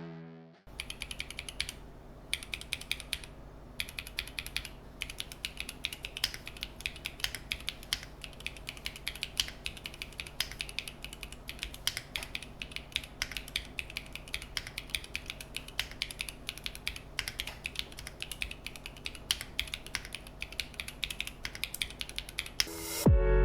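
Typing on a NEO65 mechanical keyboard fitted with KTT Bear linear switches (polycarbonate top housing, nylon bottom housing, POM stem) and built without foam. Fast, continuous keystrokes start about a second in and stop near the end.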